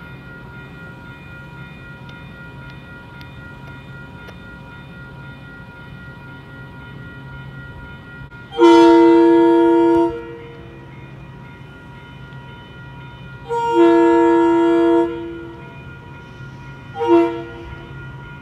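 A Metro-North commuter train's horn sounds the grade-crossing warning as the train approaches: two long blasts, then a short one. Under it a level-crossing warning bell rings steadily.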